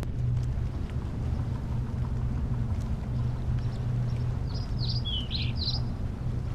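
A steady low rumble throughout, with a short burst of high bird chirps about two-thirds of the way in.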